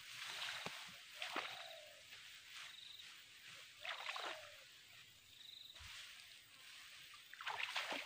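Thick, tall grass rustling and swishing in a few short bursts as a person wades through it on foot.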